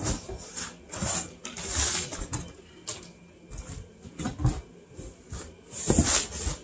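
Rustling and scraping of packaging as a cardboard shipping box is handled and opened, in irregular bursts, the loudest about six seconds in.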